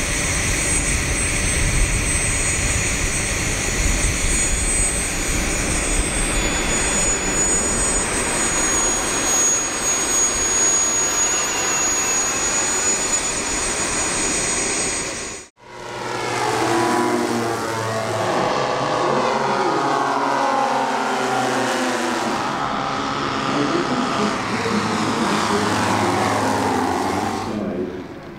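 Radio-controlled model aircraft engines in flight, in two different shots joined by a sudden cut about halfway: first a steady engine sound with a high, even whine, then another aircraft's engine whose pitch sweeps up and down as it flies past.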